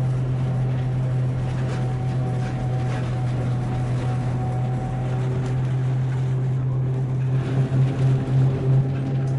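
A vehicle running with a steady low hum that wavers near the end.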